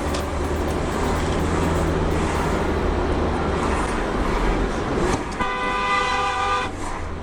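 Steady traffic and road noise with a low rumble, then a car horn honks once, held for just over a second, about five seconds in.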